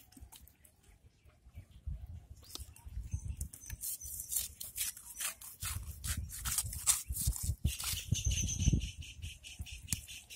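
Hands breaking and scraping clods of wet mud around a hole in the ground, a run of short crunches and scrapes that grows busier in the middle.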